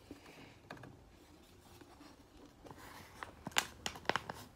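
A sheet of paper being handled and folded into a paper boat: faint rustling, then several sharp crinkles and crackles of the paper near the end.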